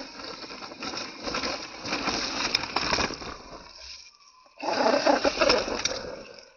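Radio-controlled rock crawler driving over rocks, its electric motor and tyres grinding in two bursts of throttle with a short pause between; the second burst is the louder.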